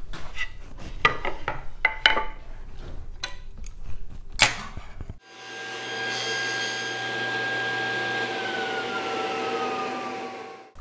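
Wood and metal handling clicks and knocks as the saw's rip fence and a red oak board are set, with one sharp click about four seconds in. Then a table saw runs steadily while ripping the red oak, with a whine that slides down in pitch over its last few seconds.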